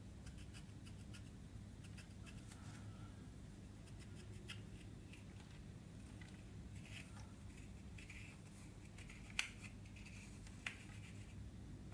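Pressed eyeshadow being scraped and crumbled in its pan with a small pointed tool: faint dry scratching and ticking, with two sharper clicks late on.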